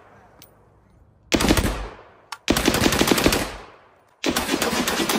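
Rapid-fire gunshots in three bursts, each a quick string of shots. The first is short, the second longer and ringing away, and the third starts near the end and is still going.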